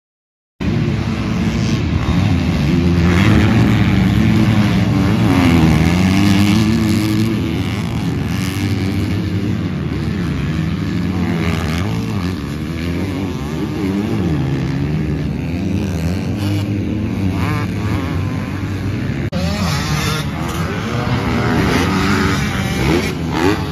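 Several 250-class motocross dirt bikes racing together, their engines revving up and down over one another.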